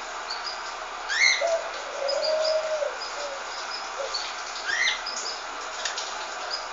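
Pet birds calling: short high chirps repeat throughout. Two louder rising calls come about a second in and again near the five-second mark, and a low held note lasts about a second in between.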